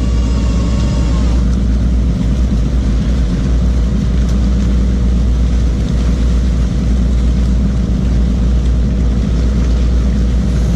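Fishing boat's engine running with a steady low drone. A higher whine on top fades out about a second and a half in.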